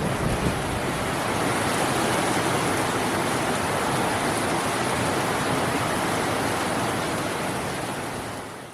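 Steady heavy rain, a dense even hiss that fades out near the end.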